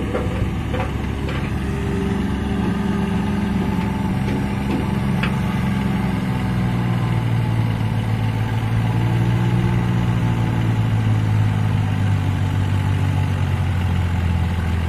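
John Deere tractor's diesel engine running hard as it pulls a heavily loaded trolley up a slope. Its note drops lower and grows louder about halfway through as the engine lugs under the load.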